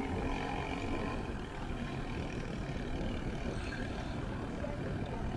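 Steady low rumble of wind buffeting the microphone, with road noise, while riding along a road.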